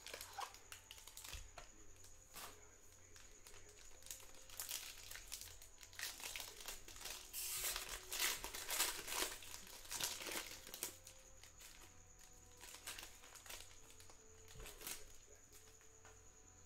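Foil trading-card pack wrapper crinkling as it is handled and torn open by hand, with the thickest crackling about halfway through.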